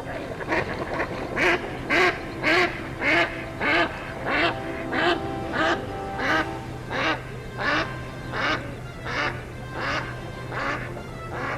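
A duck quacking in a long even series, about one quack every two-thirds of a second, loudest near the start and slowly growing softer.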